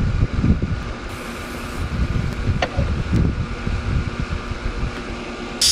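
Wind buffeting the microphone in uneven low gusts over a faint steady machine hum, with one light click near the middle. A loud steady hiss of refrigerant from the recovery hoses starts abruptly right at the end.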